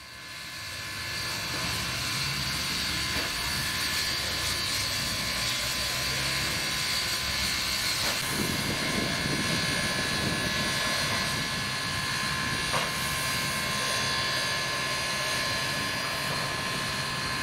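Tangshan-built 2-8-2 Mikado steam locomotive 3025 at close range: a steady hiss of steam with a constant whine running through it, fading in at the start. There is no distinct chuffing rhythm.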